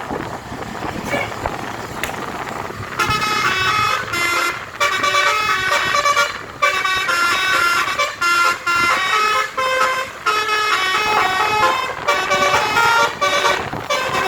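Basuri musical air horn on a Kramat Djati tour bus playing a 'telolet' tune. The horn starts about three seconds in, over road and engine noise, and plays a run of stepped notes with short breaks between phrases.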